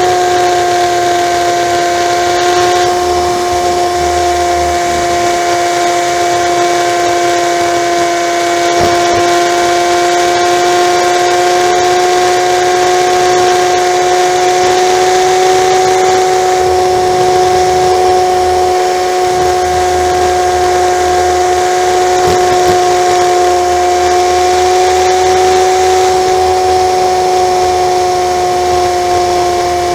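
Honda Magna V4 motorcycle engine running steadily at highway cruising speed, a constant droning tone that holds its pitch, with wind rushing over the bike.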